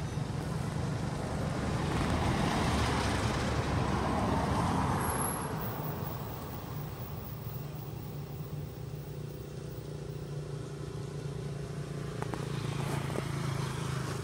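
Road traffic going by: a vehicle passes with a steady low engine hum, swelling about two seconds in and fading out by about six seconds. A second vehicle swells in near the end.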